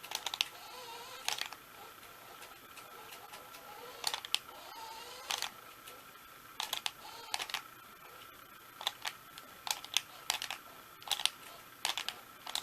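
Irregular sharp clicks and taps, about a dozen, from toy remote-control cars and their plastic controllers being handled. A faint steady high tone runs under them.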